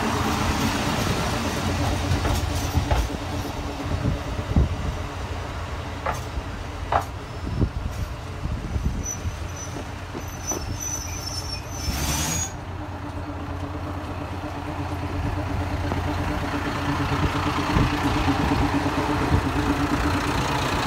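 JR Hokkaido KiHa 54 diesel railcar's engine running with a steady drone, with a few sharp clicks partway through; the engine grows louder over the last few seconds as the car moves along the platform.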